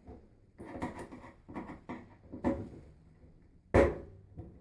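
Scattered clicks and knocks from a hand screwdriver and the plastic latch parts as a front-loading washer's replacement door latch is screwed in by hand, with one sharper knock near the end.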